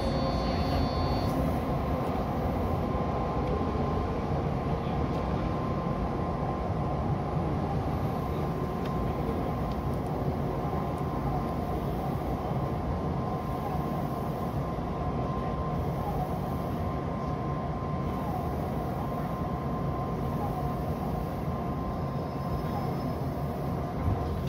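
Odakyu 2000 series electric train running through an underground tunnel, heard from inside the front cab: a steady rumble of wheels and running gear with a steady high tone over it.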